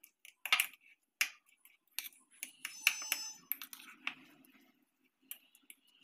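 A metal fork clinking and scraping against a dish while chopping and mashing boiled eggs, in irregular strokes, with a brief ringing clink about three seconds in.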